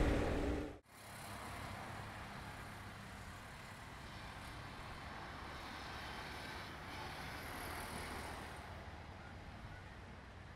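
Faint, steady outdoor traffic hum from a nearby road. In the first second a louder sound fades and cuts off abruptly.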